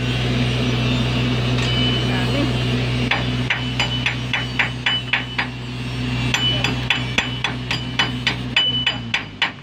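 Chipping hammer striking a fresh stick-weld bead on steel to knock off the slag: from about three seconds in, quick strikes about four a second, each with a short metallic ping, with a brief pause midway. A steady low hum of the engine-driven welding machine runs underneath and drops away near the end.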